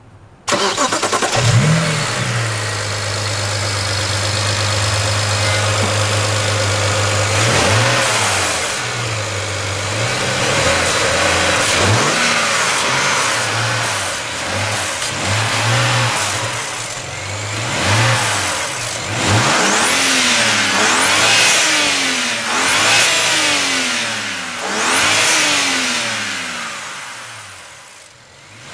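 BMW 335i's N54 twin-turbo inline-six starting about half a second in, flaring briefly and settling to a steady idle, then revved again and again from about seven seconds on, with a quicker string of blips in the second half and a fall back near the end. The engine breathes through newly fitted dual cone air intakes.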